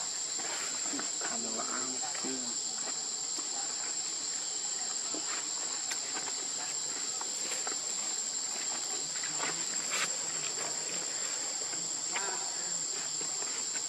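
A steady, shrill chorus of insects droning without a break, with a few faint clicks or rustles, the clearest about six and ten seconds in.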